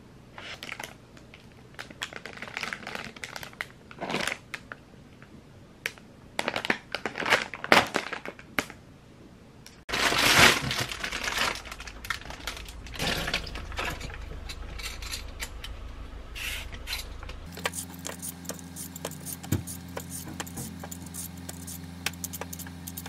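Paper and plastic grocery packaging being handled, crinkling and rustling with sharp clicks and light knocks. After a cut come kitchen-sink sounds: a sudden burst of hiss about ten seconds in, then a steady low hum with light scraping clicks as a carrot is peeled with a hand peeler.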